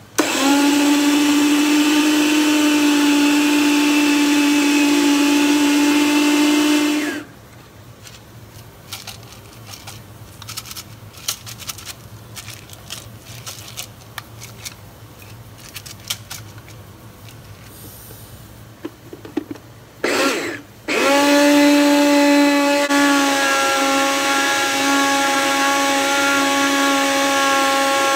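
Sharp blender motor running at a steady pitch as it grinds rolled oats into flour, stopping about seven seconds in. Then a stretch of scattered clicks and knocks as the jar of oats is shaken, a short burst of the motor, and the blender running steadily again for the last several seconds.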